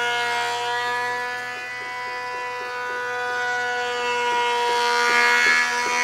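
Background music holding one steady chord, with faint taps of claw hammers driving nails in the second half.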